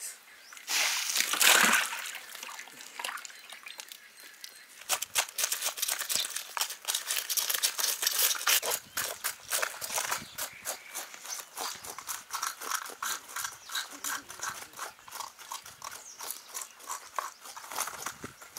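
Live snakehead murrel fish splashing in water in a plastic crate about a second in. Then a long run of quick scraping strokes, several a second, as a fish's scales are scraped off.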